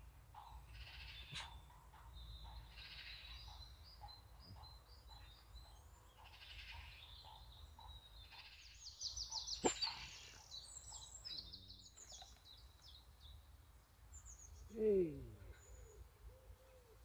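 Birds singing and chirping on and off, with a brief trill and a sharp click about ten seconds in. Near the end comes a short, louder falling animal call.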